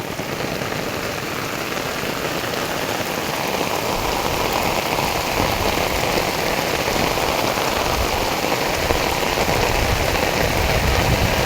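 Heavy rain falling steadily, a dense even hiss. From about four seconds in a low rumble builds underneath it.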